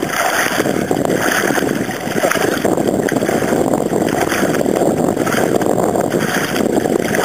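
Water sloshing and splashing around a sit-on-top kayak as a man in the water holds on beside it; a steady, rough wash of water noise.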